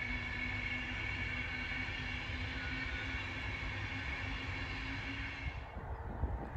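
Freight train rolling past on the main line: a steady rumble with a held high tone and a lower hum, ending abruptly about five and a half seconds in and giving way to wind buffeting the microphone.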